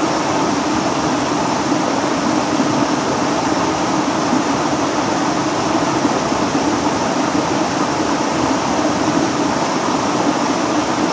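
Steady rushing of a shallow rocky stream, an even unbroken noise of flowing water over stones.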